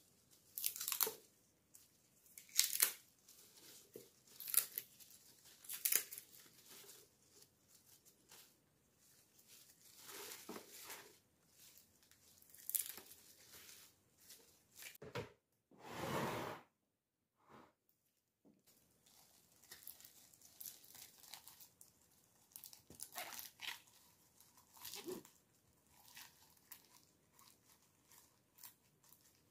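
Fresh celery leaves being handled with plastic-gloved hands: irregular crisp rustling and tearing as leaves are picked off their stalks, then pressed down into the top of a glass pickle jar.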